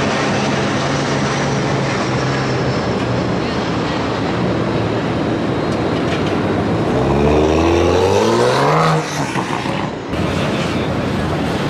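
Toyota GR Supra's engine running, then revving up in one rising sweep for about two seconds as the car accelerates away, cut off sharply when the throttle is lifted.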